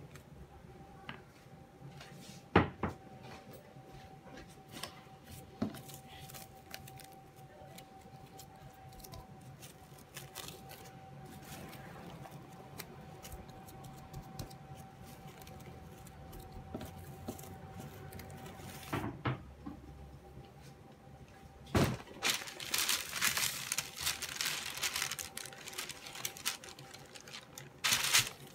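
A spoon scraping and knocking against a ceramic bowl, with one sharp knock a few seconds in, over a faint steady hum. Later, plastic cling film and baking paper crinkle and rustle as a log of dough is wrapped and laid on a baking tray.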